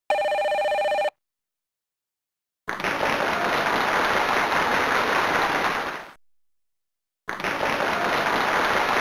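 A brief electronic tone with several pitches sounding at once, then a pause, then two stretches of loud, steady, dense noise a few seconds each, starting and stopping abruptly with a short silence between.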